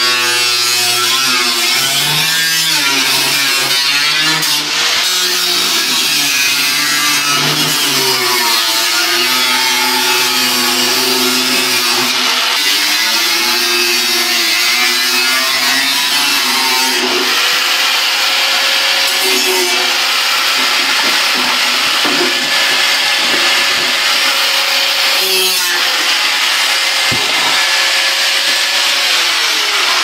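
Angle grinder cutting through the sheet-metal back panel of a microwave oven. The motor's pitch dips and recovers as the disc bites into the metal, then runs steadier in the second half, over a harsh grinding hiss.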